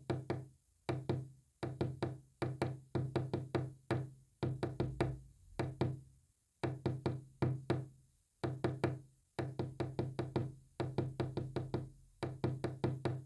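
Rapid knocks with a low, ringing pitch, tapped out in quick clusters of several strokes with short pauses between them, in the manner of Morse code sent by knocking.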